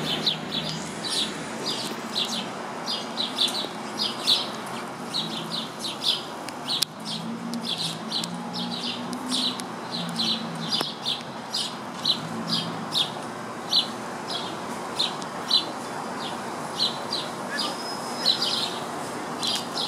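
House sparrow chirping over and over, a steady string of short cheeps about two a second, over a faint low hum.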